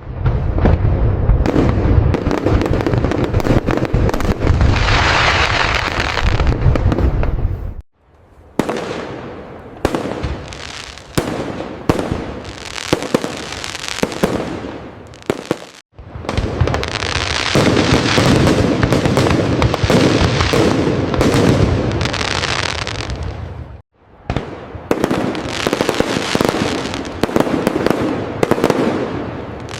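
Fireworks display: a dense run of bursting shells and crackling, cut off abruptly to silence about every eight seconds. Between about 8 and 16 seconds in it thins to sparser, separate bangs.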